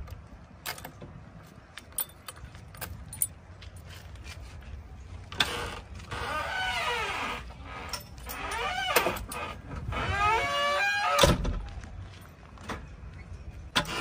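Key clicking in the cab door lock of a JCB 3DX backhoe loader, then the cab door's hinges creaking and squeaking, rising and falling in pitch, over several seconds as the door is worked open. A loud, sharp thump comes about eleven seconds in.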